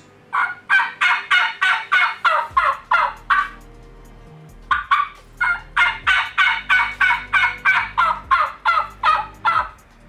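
Turkey yelps on a mouth diaphragm call: a run of about eleven quick high-pitched hen yelps, a pause of about a second, then a longer run of about seventeen yelps in a lower tone, like a jake or a bossy old hen.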